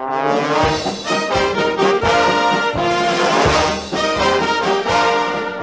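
Brass band music, trombones and trumpets playing a lively tune. It starts suddenly out of silence and eases off near the end.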